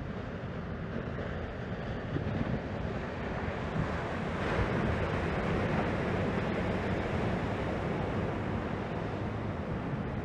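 Ocean surf breaking and washing ashore, a steady rushing noise that swells about four seconds in, with wind buffeting the microphone.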